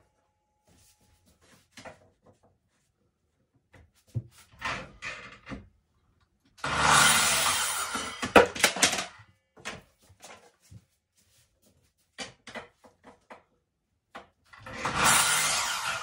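Electric mitre saw run twice: each time a loud burst of a couple of seconds as the blade spins up and cuts through wood, about halfway through and again near the end. Between the cuts come scattered knocks and clatter of timber being handled on the saw table.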